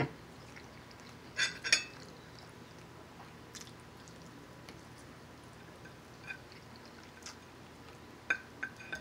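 A metal fork scraping and clinking on a plate while picking up pork chop: two short, loud scrapes about a second and a half in, then a few light ticks, three close together near the end, with quiet chewing between.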